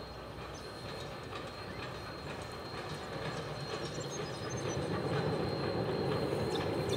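Vintage steam train approaching on the rails toward the bridge, its rumble growing louder over the first five seconds and then holding steady as it nears.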